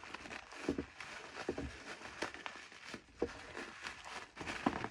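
A smoke alarm's box and packaging being handled: irregular rustling and crinkling with small knocks and scrapes as the alarm is worked out of its box.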